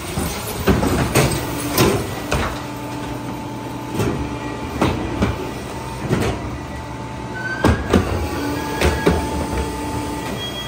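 Heil 5000 rear-loader garbage truck running steadily while wheeled plastic trash carts are tipped into its hopper, with a dozen or so irregular clanks and thumps as the carts bang against the hopper and trash drops in.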